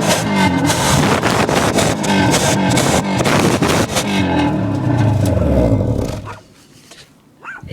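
Car engine running and revving loudly. About six seconds in its pitch falls away and it stops. A short whine, like a dog's, is heard just before the end.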